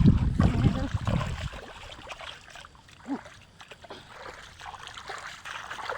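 Shallow water splashing and sloshing, heavy for about the first second and a half, then dying down to faint trickling with a few small knocks.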